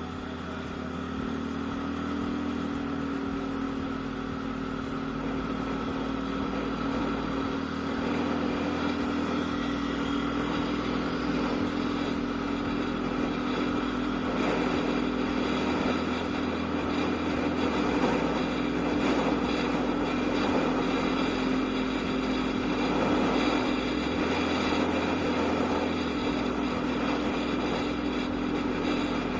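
Yamaha Aerox scooter engine running while being ridden, its note building over the first several seconds and then holding steady at cruising speed.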